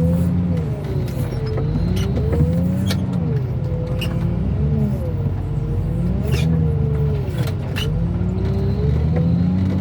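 Heavy equipment's diesel engine running under load, its pitch rising and falling as the machine works the hydraulics, with scattered sharp metal clanks.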